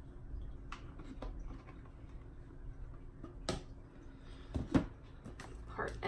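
Scattered light clicks and knocks of small bottles, caps and cups being handled on a wooden tabletop, the loudest a double knock about three-quarters of the way in.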